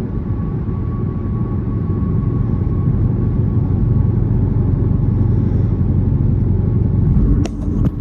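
Dodge Charger R/T's catless 5.7 L Hemi V8 exhaust rumbling under way, growing louder over several seconds. It dips briefly with a sharp click near the end.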